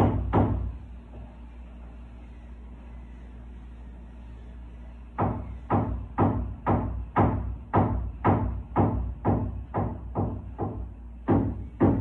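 Background music with a steady beat of about two hits a second. The beat drops out about half a second in, leaving only a low hum, and comes back about five seconds in.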